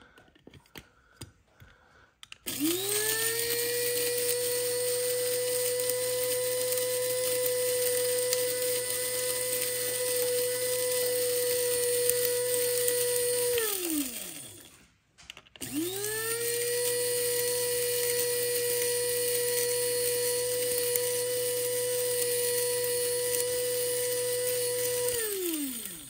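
Wancle electric blade coffee grinder grinding dried habanero peppers to powder: the motor runs with a steady whine in two runs of about eleven and ten seconds, each spinning up and winding down, with a short pause between. A few clicks as the lid is fitted come before the first run.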